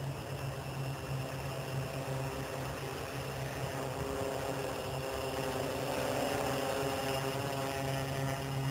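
Quadcopter's electric motors and propellers buzzing in flight, a steady multi-tone whine over a low hum, growing louder about halfway through as it climbs and passes close.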